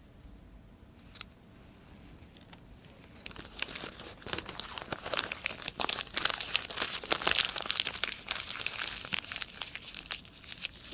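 Paper wrapping crinkling and rustling as it is handled. It is faint at first with one click, then comes in about three seconds in and grows into steady crackling.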